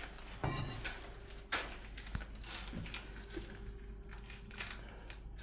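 Scattered footsteps and light knocks, with a sharper knock about a second and a half in, over a steady low hum.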